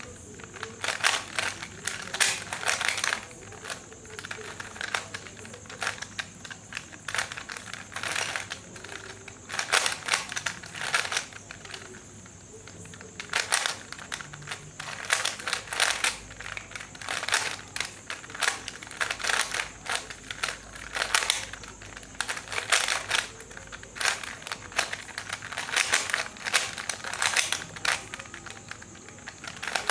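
3x3 Rubik's cube being solved at speed: rapid plastic clicking and clacking as its layers are turned, in bursts of turns with short pauses between them.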